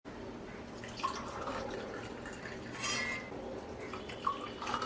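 Hot kadha poured from a pan through a strainer into a cup: liquid trickling and dripping, with a few light clinks of utensils against the cup.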